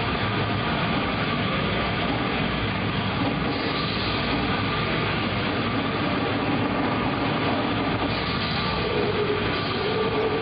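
Gore-metal band playing live at full volume: a dense, unbroken wash of distorted guitars and drums.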